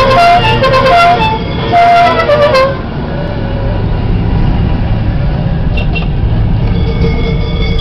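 A horn sounds a quick run of toots at changing pitches during the first three seconds. Under it and afterwards, the air-cooled flat-twin engine of a Citroën 2CV-family car drones steadily, heard from inside the cabin while driving.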